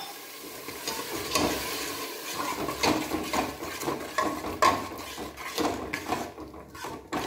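Long steel spoon stirring a thick masala gravy in an aluminium pressure-cooker pot, clinking and scraping against the metal a couple of times a second.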